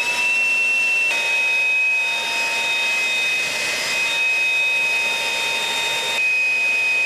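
DeWalt cordless handheld blower running at a steady speed: a high whine over a rush of air. The pitch steps down slightly about a second in.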